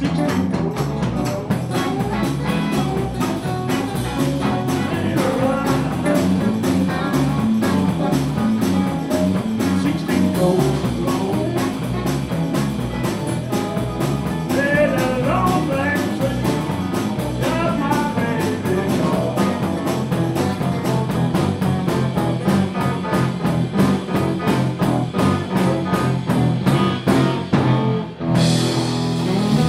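Live blues band playing: electric guitar over bass guitar and drum kit, with a short break near the end before the band comes back in.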